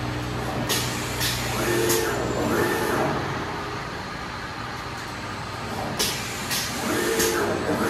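Semi-automatic flatbed screen printing press cycling twice: each time, three short pneumatic air hisses in quick succession, followed by a motor whine rising and falling as the mechanism travels. A steady machine hum runs underneath.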